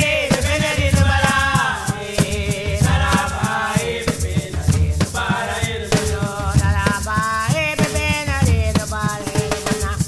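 Background music: a melody over a strong bass line and busy, rhythmic percussion with a steady beat.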